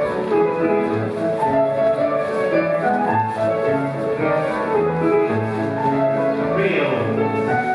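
Scottish country dance music for a reel, a melody over regularly repeating bass notes keeping a steady dance beat.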